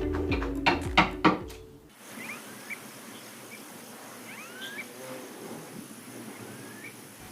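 Background music with a few sharp knocks, cutting off about two seconds in. After that, quiet outdoor ambience with a handful of short chirping calls over a faint steady high-pitched hum.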